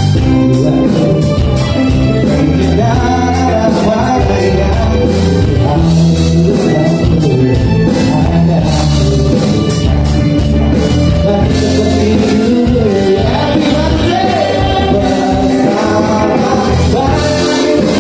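Live band playing a song with a singer.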